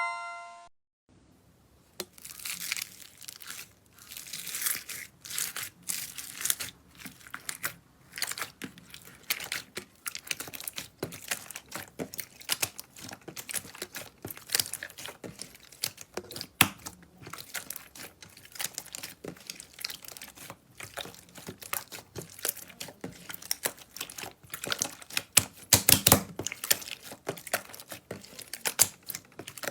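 Slime being squeezed and stretched by hand, with dense, irregular crackling and popping clicks that start about two seconds in.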